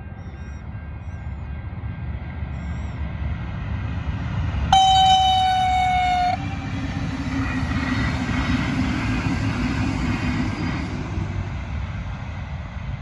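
V/Line VLocity diesel railcar train passing: one horn blast of about a second and a half, about five seconds in, its pitch sagging slightly, then the rush and rumble of the train running by, swelling and fading away.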